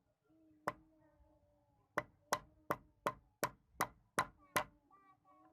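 Restored hammer striking nine blows: one, then after a pause eight in a quick steady rhythm of about three a second, each blow leaving a short ringing tone.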